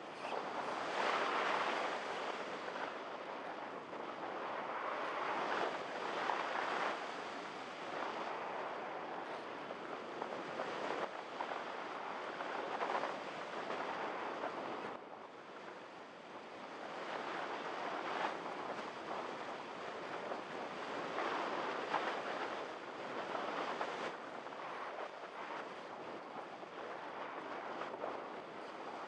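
Wind rushing over the microphone of a camera carried aboard a Multiplex EasyStar RC model plane in flight. It is a continuous rushing hiss that swells and eases every few seconds, and dips briefly about halfway through.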